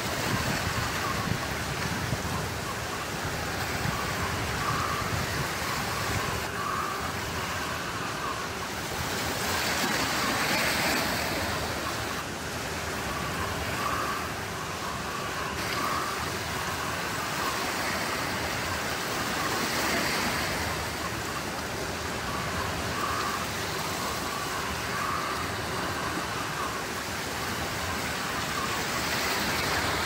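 Small waves washing onto a pebble beach: a steady rush of surf that swells every ten seconds or so.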